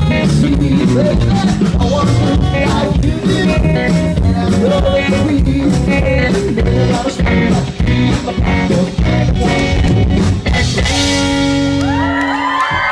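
Live rock band with guitar and drums playing an upbeat instrumental outro on a steady beat, ending on a held final chord near the end. The audience starts cheering as the chord stops.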